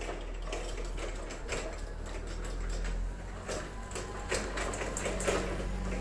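A steady low hum, with irregular soft knocks and rustles over it that come more often in the second half.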